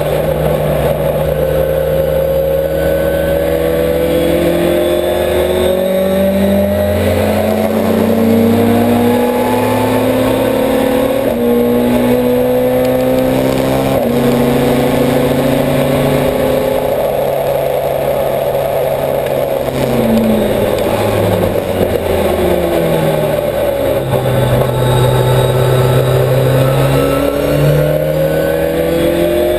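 Millington-engined Ford Escort race car heard from inside the cockpit, driven hard through the gears: the engine note climbs and drops back at each upshift, falls as the car slows about two-thirds through, then climbs again near the end.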